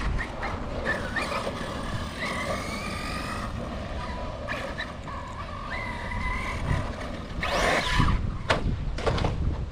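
Radio-controlled cars running on a dirt track, their motors whining and changing pitch as they speed up and slow down. A louder swell about eight seconds in, as a car comes close or throttles hard.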